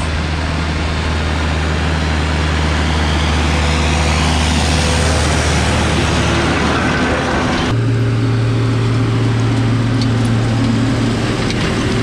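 Case Puma tractor pulling a Maschio power-harrow seed drill across dry tilled soil: the engine runs with a steady low hum while the noise of the drill working the ground grows louder as it passes close by. The sound changes abruptly nearly eight seconds in.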